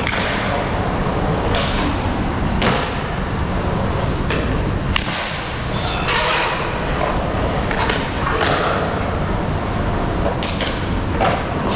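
Skateboard wheels rolling on concrete with a steady rumble, broken every second or two by sharp clacks and thuds as the board hits the ground during tricks in a line.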